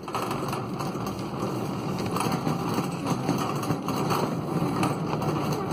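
Cart wheels rolling fast over a concrete store floor, a steady rattling rumble with small clicks and knocks.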